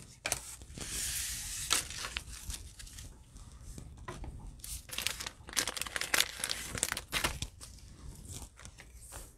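Irregular crinkling and rustling of trading cards and plastic pack wrappers handled with nitrile-gloved hands, with scattered light crackles and taps.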